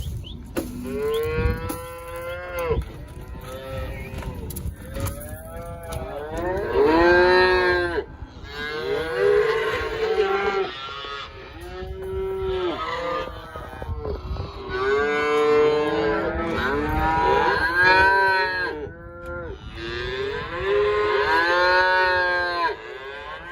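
A herd of cattle mooing and bawling over one another almost without a break, many calls arching up and down in pitch. The cows and calves are being sorted into separate pens.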